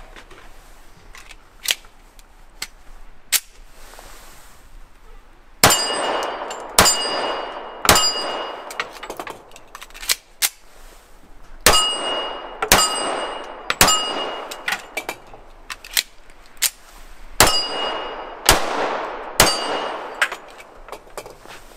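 Smith & Wesson 1911 pistol firing .45 ACP, about ten shots in strings of mostly three about a second apart, each shot trailed by a ring. A few light clicks of handling come first.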